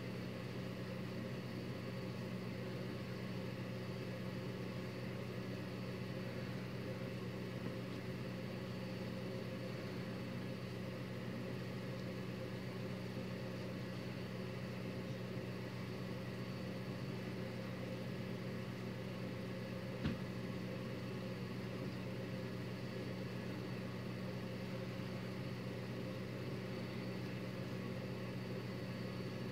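A steady low hum, like a motor or appliance running in the room, with one brief click about twenty seconds in.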